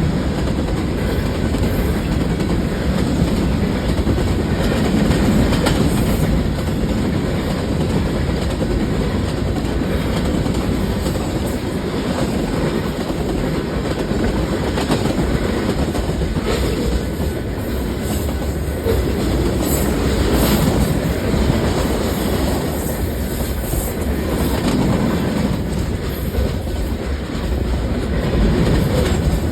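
Train rolling past, its wheels clacking over the rail joints in a steady rumble.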